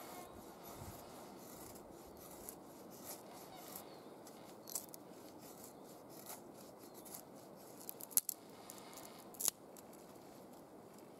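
Knife blade shaving thin curls down a split wooden stick to make a feather stick: a series of short scraping strokes, with a few louder, sharper clicks in the second half.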